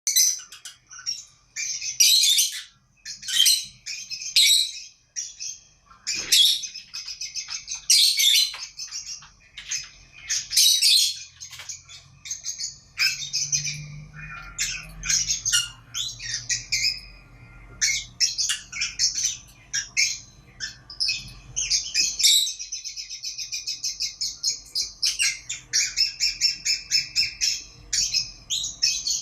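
A pair of small pet parrots calling and chattering: shrill chirps and squawks in irregular bursts, then through the last third a fast, even run of rapid chirps.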